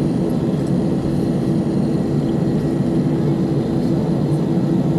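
Airbus A319 jet engines heard from inside the cabin at taxi power: a steady low hum and drone that does not change as the airliner taxis.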